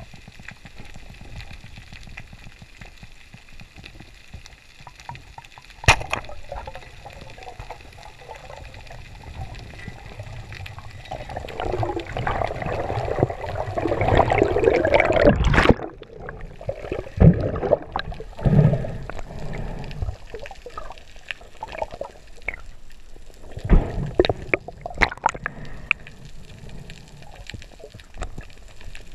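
Underwater sound of a speargun dive. A single sharp crack about six seconds in is the speargun firing. A rush of water swells for several seconds as the diver swims hard and cuts off suddenly, then come scattered knocks and clacks of the spear and gear being handled.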